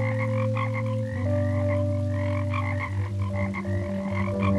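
Animated frogs croaking in a chorus. Long, low, held croaks step to a new pitch every second or so, over quicker, higher croaks several times a second.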